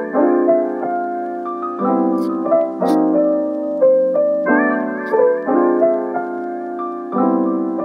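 Background music: a gentle piano melody over chords, the notes changing every half second or so and the phrase repeating about every five and a half seconds.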